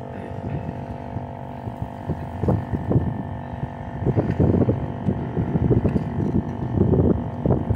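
Electric air pump running with a steady motor hum while inflating an inflatable paddleboard. Irregular low bumps and rustles sound over it in the second half.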